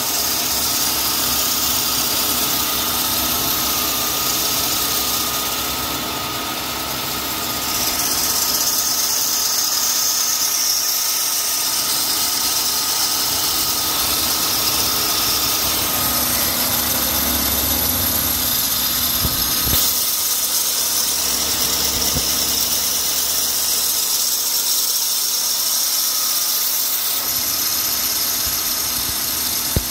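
Cadillac Fleetwood Brougham's LT1 5.7 L V8 idling unevenly, with a steady high-pitched squeal from the belt-driven accessories. The owner takes it for the sign of a failed A/C compressor that has been burning the drive belt.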